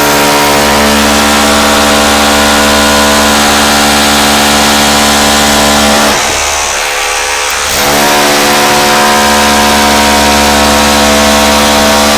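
Bosch GBH18V-26 18V cordless SDS-plus rotary hammer drilling holes in a wall, running loud and steady. It eases off for about a second and a half around six seconds in, then drills again at full speed.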